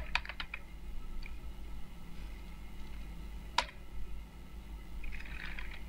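Computer keyboard keystrokes: a quick run of key clicks at the start, then a few scattered single clicks, the sharpest about three and a half seconds in, over a faint low hum.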